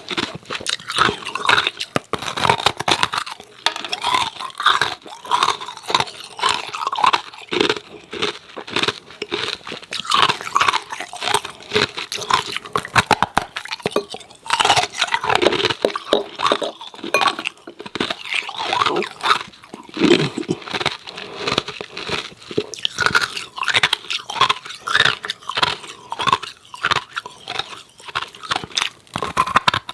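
Close-miked chewing of hard, frost-coated ice cubes: continuous loud crunching and cracking as the ice breaks between the teeth.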